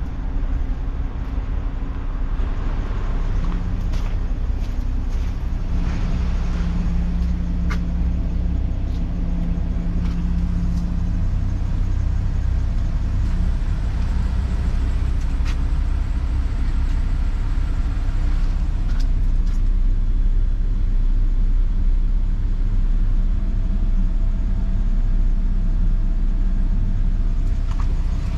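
Ford F250 pickup's engine idling steadily, with a few light clicks about a third of the way in and again near the middle.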